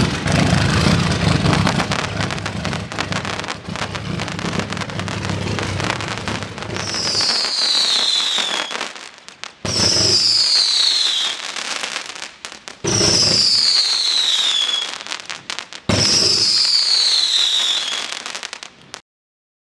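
Beast 220 500-gram fireworks cake firing: about seven seconds of rapid launches, popping and crackling. This is followed by four falling whistles, each about two seconds long, the last three each starting with a thump.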